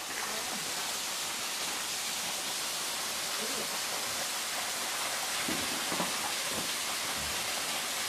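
Small waterfall pouring into a rock pool on a forest creek: a steady, even rushing hiss of falling water.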